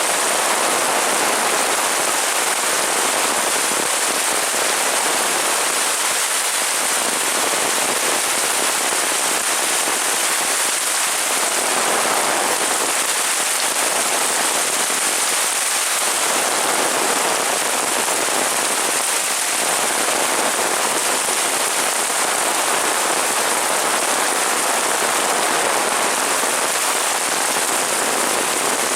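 Heavy rain falling steadily, a dense even patter.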